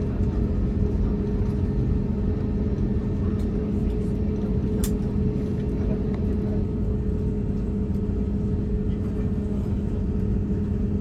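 Steady, unchanging engine rumble with a constant low hum, and one sharp click about five seconds in.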